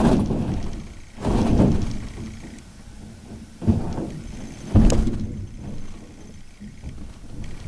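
Heavy thuds and scraping knocks of a washing machine being wrestled into a vehicle, with the sharpest knock about five seconds in.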